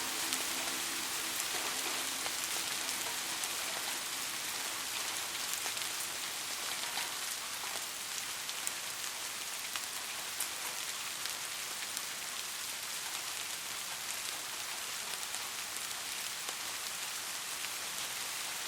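Steady rainfall, an even hiss with scattered sharp ticks of individual drops landing close by.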